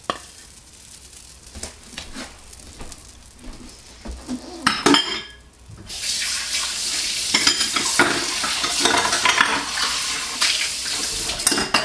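Pancake batter sizzling on a hot Presto electric griddle, with a few light clicks from the plastic batter scoop in the first few seconds. About halfway through, the sizzle becomes a loud, steady hiss.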